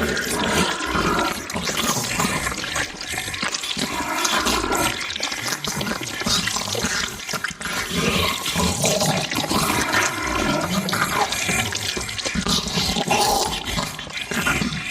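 Monster-eating sound effect: continuous wet, squelching chewing and slurping, with no pauses.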